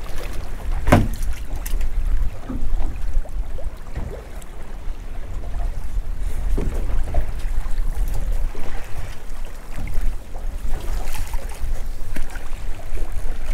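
Wind buffeting the microphone on a small boat drifting at sea with no engine running, with water slapping the hull. There are a few sharp knocks, the loudest about a second in.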